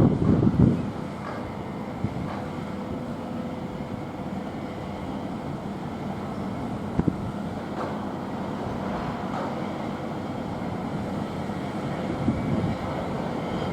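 Steady low rumble of a large car ferry running at the quay, with a faint steady hum throughout. A louder surge comes at the start, and a single sharp knock about seven seconds in.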